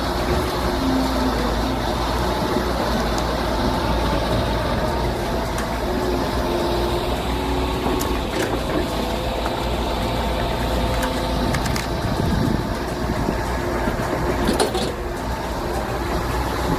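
A large engine running steadily, with a few sharp knocks and clicks over it.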